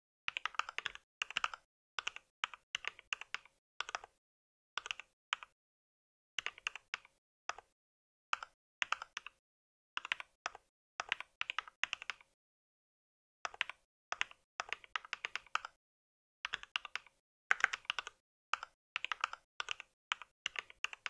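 Typing on a mechanical keyboard: quick runs of keystroke clicks in bursts, broken by brief pauses.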